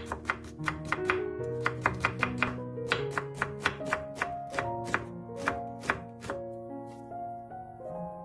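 Chef's knife striking a wooden cutting board in a quick, even run of cuts while slicing carrot and onion into thin strips, stopping about six seconds in, over background music.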